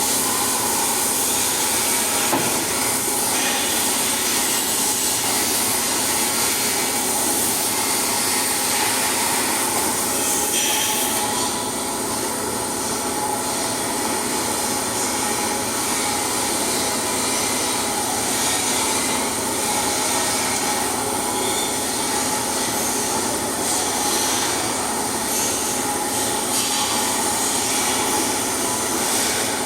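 Flux-cored arc welding: the arc sizzling steadily without a break.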